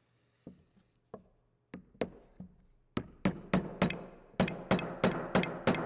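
Hammer tapping a brass medallion into its recess in a machined wrench: a few light taps, then about 3 seconds in a steady run of harder, ringing strikes, about three a second.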